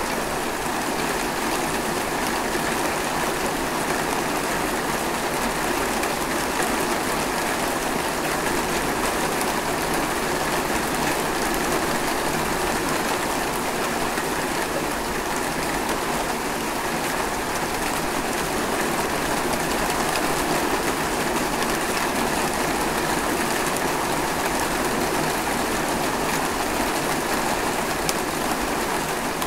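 Steady rain falling: an even, dense hiss with faint scattered drop ticks.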